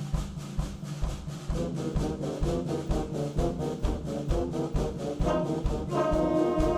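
Concert band playing, with a steady drum beat under low held notes. A moving line comes in after about a second and a half, and the brass enters loudly with a held chord near the end.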